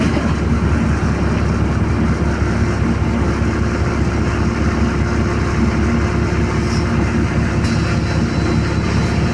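Steady low rumble and hum of a bus engine, heard from inside the bus as it moves slowly in traffic.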